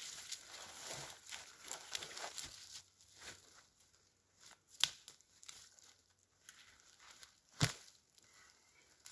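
Small spruce branches being snapped off by hand, a run of twiggy crackling and rustling with two sharp snaps about three seconds apart.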